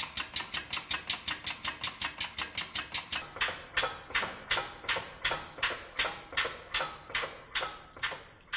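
Small steam-powered boiler feed pump running with a regular beat, one sharp stroke sound per cycle. It goes at about four strokes a second, then slows to about two a second a little after three seconds in.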